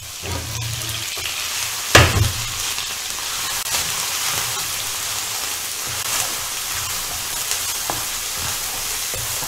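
Chopped onions frying in hot oil in a frying pan, a steady hiss and sizzle as they are stirred with a spatula. One sharp knock about two seconds in.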